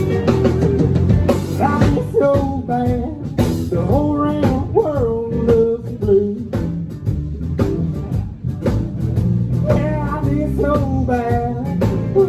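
Live country band playing a blues number, with guitar and drums and a bending melody line over the top.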